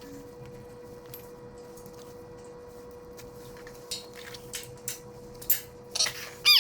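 Faint steady hum with scattered light clicks and clinks starting about four seconds in, and a short high-pitched yelp near the end.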